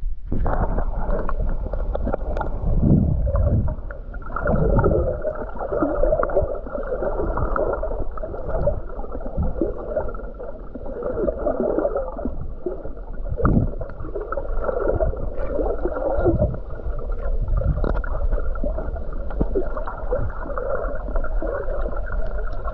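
Muffled sea water sloshing and gurgling over the microphone, in uneven surges.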